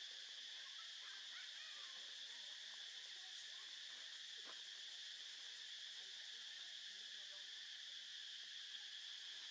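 Faint, steady high-pitched drone of an insect chorus.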